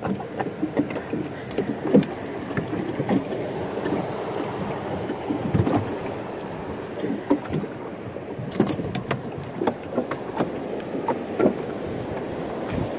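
Choppy sea water slapping against the hull of a small wooden boat, with scattered knocks and clicks.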